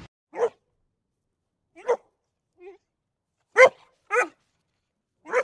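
Australian Shepherd barking: about five single sharp barks, spaced irregularly about half a second to a second and a half apart, with silence between them.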